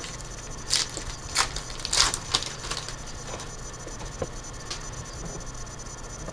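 Foil trading-card pack wrapper crinkling and tearing as it is ripped open, a handful of sharp crackles in the first three seconds, then fainter rustles and ticks as the cards are slid out and handled.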